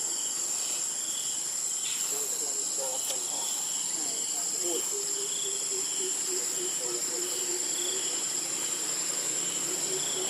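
Steady insect chorus: a continuous high-pitched whine with a softer chirp pulsing a little more than once a second beneath it.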